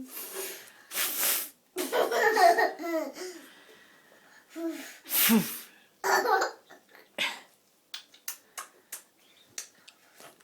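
A toddler laughing and giggling in short, sudden bursts, some breathy and some sharply pitched, with faint quick clicks near the end.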